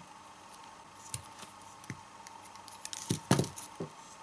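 Light clicks and taps of a battery pack of 18650 lithium-ion cells and a soldering iron being handled on a workbench, with a louder cluster of knocks about three seconds in as the pack is lifted and turned. A faint steady high tone sits underneath.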